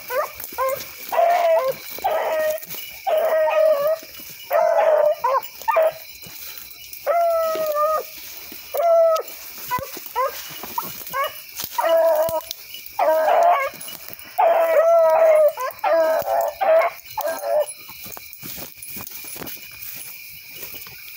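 Rabbit hounds baying on a running rabbit: a long string of drawn-out bawls and yelps that goes quiet near the end.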